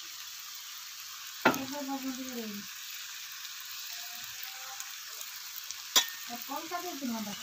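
Noodles frying in an iron wok (kadhai) with a steady sizzle as sauces are added. Two sharp clicks, about a second and a half in and near the end, are each followed by a short pitched sound lasting about a second.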